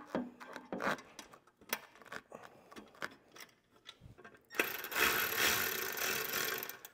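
Light clicks and knocks of a bolt and washer being fitted to the skid plate's upper mount. About two-thirds of the way in, a small cordless power tool runs steadily for about two seconds, driving the M6 bolt in.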